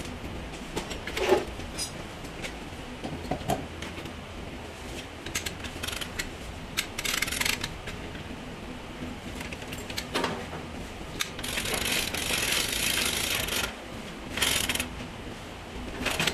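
Steel chain rattling through a lever chain hoist, in bursts of quick metallic clicking, the longest about two seconds near the end, with a few separate sharp clinks.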